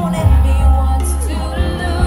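Live pop song played loud through a concert PA, with a strong steady bass and a female singer's vocals over it, heard from the audience.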